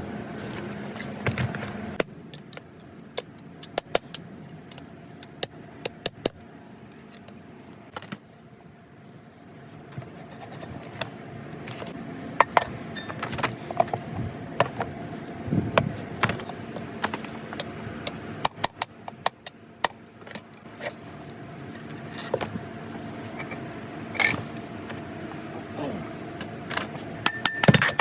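Metal parts and hand tools clinking, tapping and scraping, with many irregular sharp clicks and a faint steady hum underneath.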